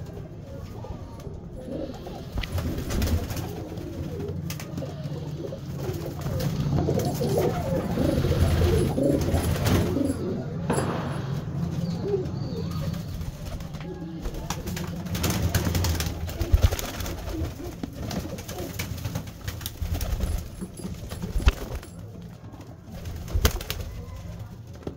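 A loft full of satinette fancy pigeons cooing continuously, many birds at once, with a few sharp knocks in the second half.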